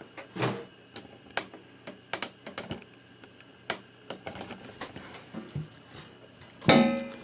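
Steel long-tube exhaust header being handled: scattered clicks and knocks, with a louder ringing clank near the end.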